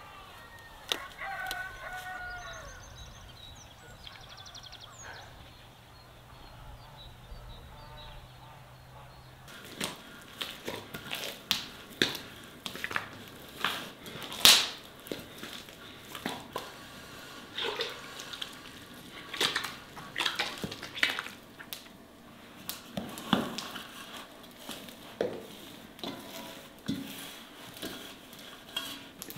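A rooster crows once, a few seconds in. From about ten seconds on, a run of irregular sharp clicks and knocks follows, the loudest about halfway through.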